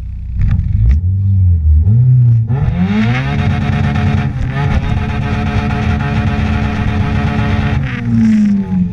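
Honda Insight's swapped-in K20 inline-four engine revving: a couple of short blips, then a climb to high revs held steady for about four seconds, dropping back near the end.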